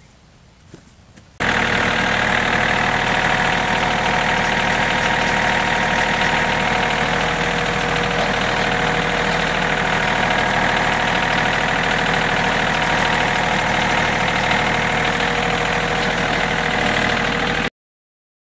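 Portable bandsaw sawmill's gas engine running steadily. It starts abruptly about a second and a half in and cuts off abruptly near the end.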